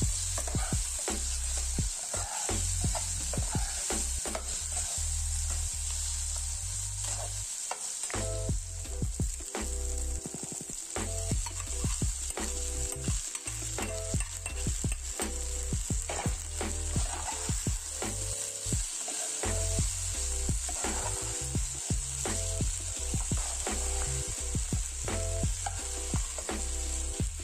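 Diced vegetables and sago pearls (sabudana) sizzling in oil in a nonstick pan, stirred with a metal spatula that scrapes and clicks against the pan over a steady frying hiss.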